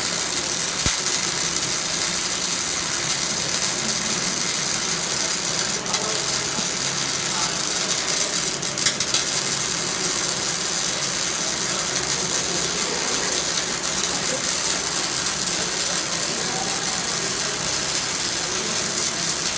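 Semi-automatic (MIG/MAG) welding arc running steadily without a break, with a few sharper pops about six and nine seconds in.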